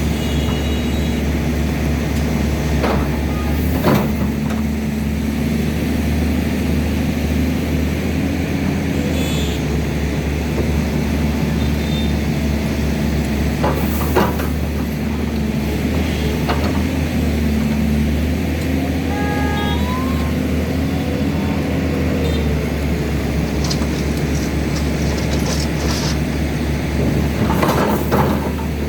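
Excavator's diesel engine running steadily under hydraulic load, its pitch shifting slightly as it works. Occasional sharp knocks come through, about 4 s in, around 14 s, and several near the end.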